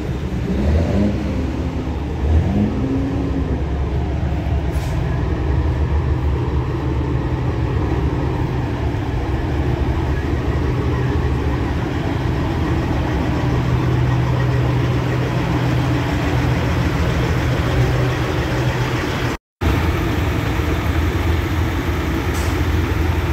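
Truck engines running, a steady low drone. The sound cuts out for a split second about nineteen seconds in.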